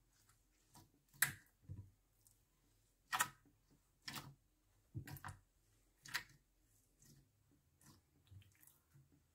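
Glitter slime being kneaded and pressed by hand in a glass baking dish, giving a string of sharp, wet clicks and pops about once a second. They grow fainter after about six seconds.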